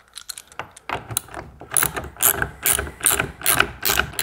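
Socket ratchet wrench clicking in a quick, regular run of strokes, about three a second, as it backs the retaining nut off a boat steering wheel's 3/4-inch tapered shaft.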